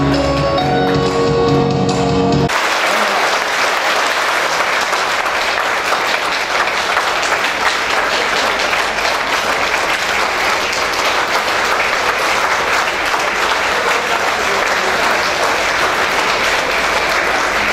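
Music plays for about the first two and a half seconds, then cuts off abruptly into an audience applauding steadily.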